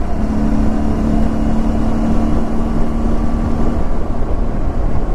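Riding noise of a motorcycle at highway speed: wind rushing over the microphone with engine and road noise underneath, plus a steady two-tone hum that fades out about halfway through.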